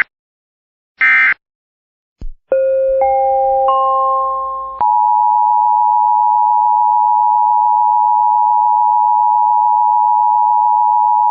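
Emergency Alert System broadcast sounds: a short buzzy digital data burst about a second in, closing the previous warning's end-of-message codes, then a three-note rising electronic chime. Then, about five seconds in, the loud steady two-tone EAS attention signal begins and holds, announcing the next alert.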